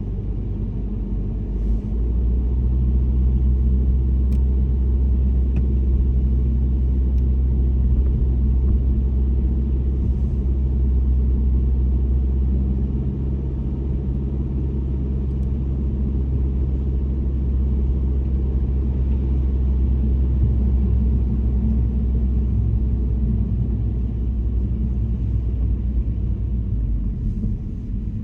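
A car driving: a steady low rumble of engine and tyres on the road, with a slight easing of the level about halfway through and again near the end.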